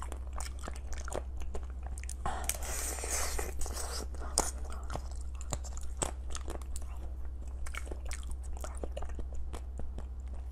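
Close-miked biting and chewing of a crunchy food: many small crunches and clicks, with a longer, denser crunching stretch about two seconds in, over a steady low hum.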